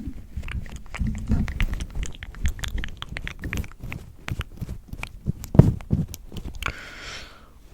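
Close-miked ASMR mouth sounds: a quick, irregular run of wet lip smacks and tongue clicks, with a short breathy hiss near the end.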